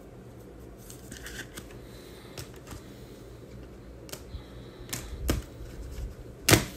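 Trading cards being handled and sorted on a table: scattered sharp clicks and taps as cards are knocked and set down, with a cluster about five seconds in and the loudest tap near the end.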